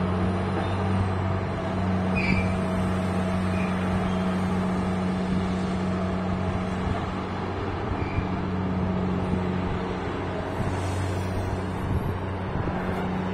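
Steady low drone of a crane ship's diesel engine running while the ship's crane works its clamshell grab; the pitch holds level throughout.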